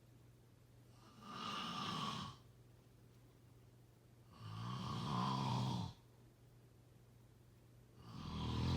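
Slow snoring: three snores about three and a half seconds apart, the second and third with a low buzzing rattle. A faint steady low hum runs underneath.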